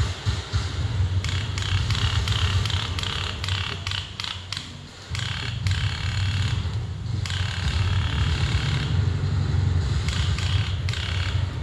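Rustling and scraping with irregular clicks over a steady low rumble.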